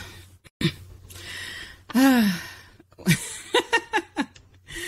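Women's wordless reactions to a question: a breathy sigh, a drawn-out 'ooh' that rises and falls in pitch, then a few short laughs.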